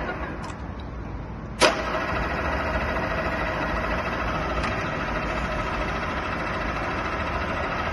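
GSP 60 radial drilling machine's spindle drive: a quieter running hum, then about one and a half seconds in a sharp clack as the control lever is thrown, and the spindle drive runs steadily and louder, switched to reverse.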